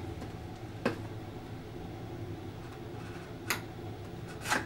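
A small knife cutting the seal of a cardboard box: three sharp clicks and taps, one about a second in and two near the end, over a steady low hum.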